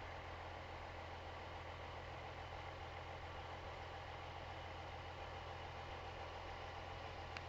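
Steady, unchanging hum of an idling truck engine with a faint hiss over it, and a single click near the end.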